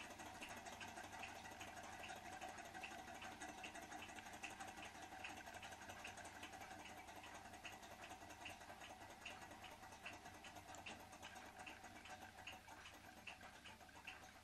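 Small L-9 thermo-acoustic engine running, its piston and flywheel mechanism ticking faintly and evenly about twice a second over a faint steady hum. The engine is slowing down as it runs.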